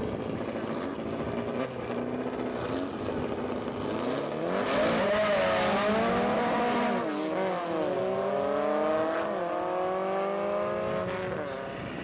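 Drag-racing VW Beetle's air-cooled flat-four engine held at the start line, then launching about four seconds in with a loud burst. It runs up through the gears, its pitch rising, dropping at a shift and rising again as the car pulls away down the strip.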